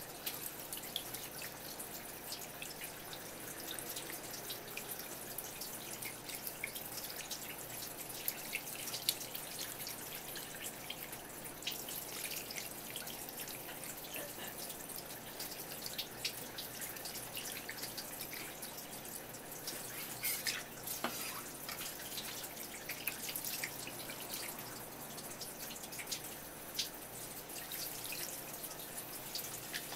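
Thin stream of running tap water splashing onto a sardine and a wooden cutting board as fingers rinse and rub the fish, a steady patter with many small splats and ticks.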